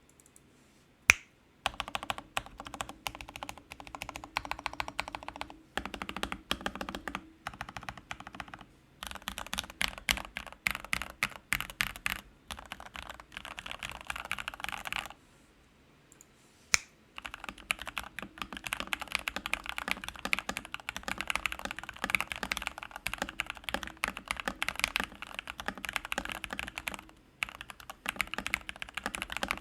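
Typing on an MK870 mechanical keyboard with hand-lubed Gateron Milky Black linear switches and lubed stabilisers: fast runs of keystroke clacks broken by short pauses, with a single sharp click about a second in and another after a pause about 17 seconds in.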